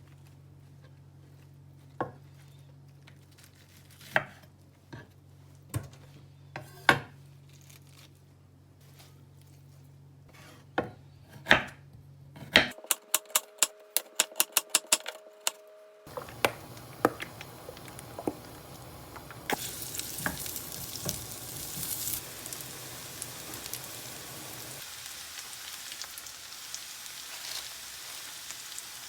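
Food sizzling in a hot pan while it is stirred, the sizzle growing louder about twenty seconds in. Before it come scattered clinks of kitchen utensils over a low steady hum, then a few seconds of rapid even ticking with a steady tone.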